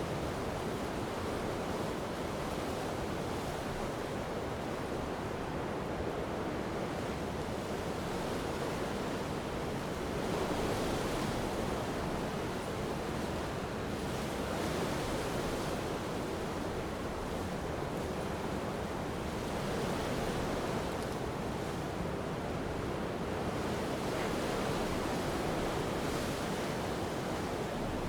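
Strong coastal wind blowing with surf breaking on the shore: a steady, dense rushing noise that swells every few seconds as waves come in.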